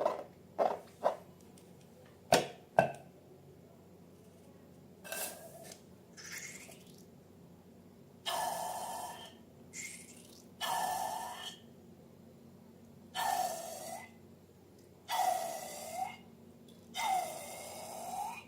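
Slime being handled: a few sharp clicks in the first three seconds, then a series of airy squelches about a second each, their pitch dipping and rising again.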